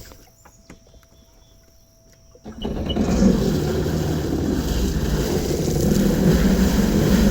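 After a few faint clicks, a Sea-Doo Spark personal watercraft's three-cylinder Rotax engine starts about two and a half seconds in and then runs steadily.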